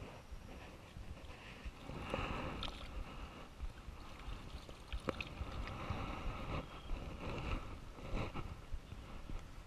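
Handling noise on a body-worn camera: clothing and dry grass rustling and rubbing against it as the wearer shifts and gets up, over a constant low rumble, with a few faint clicks.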